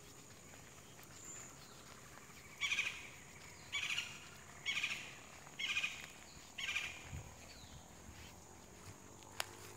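A bird calling five times in a row, about once a second, over a faint steady background, with a sharp click near the end.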